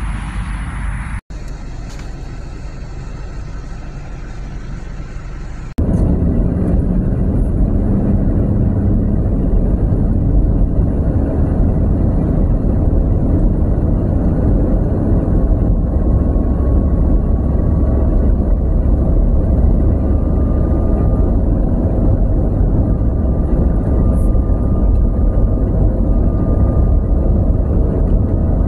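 Road traffic passing along a busy street, then an abrupt change about six seconds in to a steady low rumble of road and engine noise inside a car driving on a highway.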